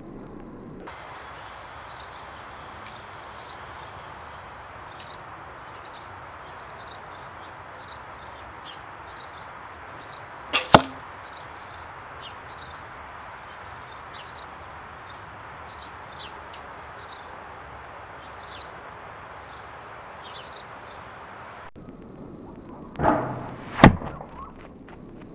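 42 lb Scythian bow shot twice: each shot is a quick, sharp snap of the string and arrow, once about ten seconds in and again near the end, the second just after a short swell of sound. Between the shots there is a steady hiss with short high chirps repeating about once a second.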